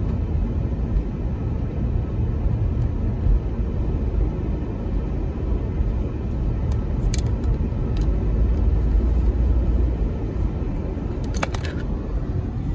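Steady low rumble of engine and tyre noise inside a moving car's cabin, with a few faint light clicks about two-thirds of the way in and near the end.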